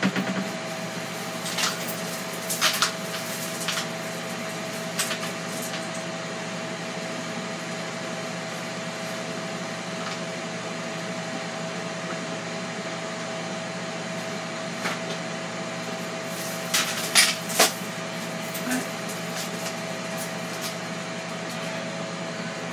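Steady hum of a running kitchen appliance with a constant whine, with a few light clicks and knocks of things being handled, a cluster of them about three-quarters of the way through.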